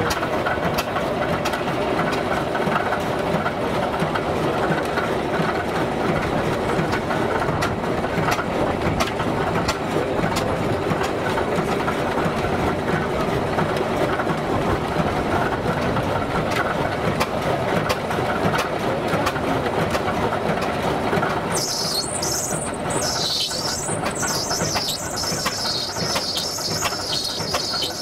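Vintage steam engine running, a steady mechanical clatter with fine rapid ticking. About three-quarters of the way in, a high, wavering sound joins it and carries on.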